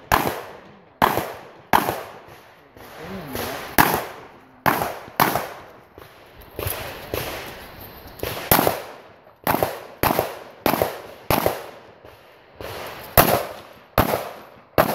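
Pistol shots fired on a practical shooting stage: about twenty sharp shots, mostly in quick pairs a fraction of a second apart, with short pauses between strings as the shooter moves to new targets.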